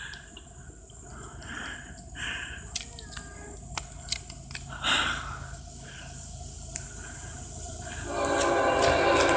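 Locomotive air horn of an approaching train sounding about eight seconds in, a chord of several steady tones and the loudest sound, over a low drone that starts a few seconds earlier.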